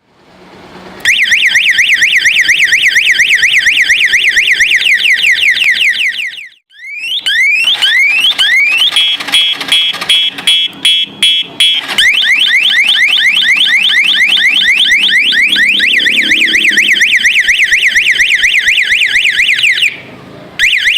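Thunder TM 08 motorcycle alarm siren sounding, starting about a second in and cycling through its tones: a fast up-and-down warble, a run of rising whoops, rapid beeping, then the warble again. It stops near the end and gives one more short burst.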